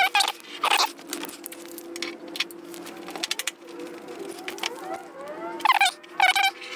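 Adhesive tape being pulled off its roll in short, squeaky pulls: two at the start, a quieter stretch in the middle, then more in quick succession from about six seconds in. A steady low hum runs underneath.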